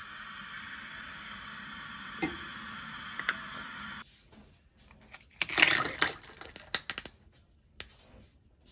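A steady hiss for the first four seconds with two light clinks of a metal spoon against a ceramic mug, then a burst of clattering as ice cubes drop into the mug, followed by a few scattered clinks.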